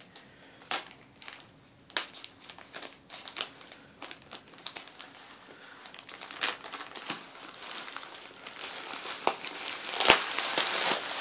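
Plastic courier mailer and bubble wrap being handled and pulled about, crinkling and rustling with scattered crackles. It grows louder and denser near the end.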